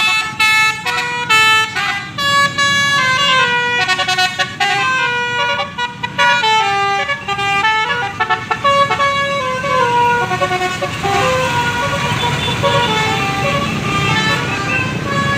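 Bus 'telolet' horn, a set of Basuri air-horn trumpets, playing a fast remix tune of short stepped notes over a steady low rumble from the bus. The notes crowd together and overlap more in the second half.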